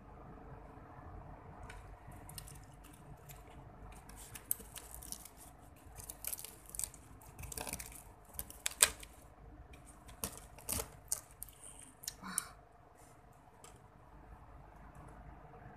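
Plastic fork and spoon clicking and scraping against a cardboard meal box and fried chicken, an irregular run of sharp clicks and scratches that is loudest about nine seconds in and dies away near the end.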